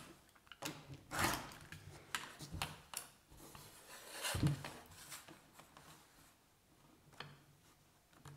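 Rotary cutter drawn through cotton shirt fabric along an acrylic quilting ruler on a cutting mat, with the ruler slid and repositioned and the fabric handled between cuts. Irregular short scraping strokes, the strongest about a second in and again around four and a half seconds, growing fainter in the last few seconds.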